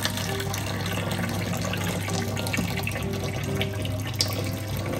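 Thin stream of water from a kitchen tap running steadily into a stainless steel sink, with a brief click about four seconds in.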